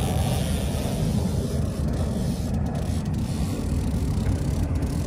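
Steady low rumble of wind buffeting the microphone on an open boat, with no clear engine tone.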